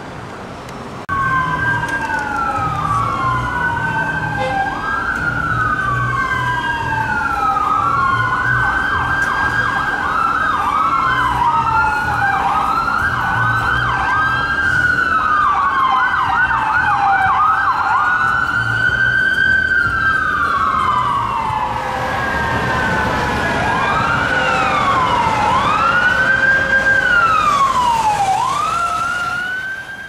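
Whelen Epsilon electronic siren on a Dodge Ram 4500 rescue ambulance, starting about a second in. It sounds a slow rising-and-falling wail, switches to a fast yelp for several seconds, then goes back to the wail. Short low blasts of the air horn come under it, and the siren grows louder near the end as the ambulance comes closer.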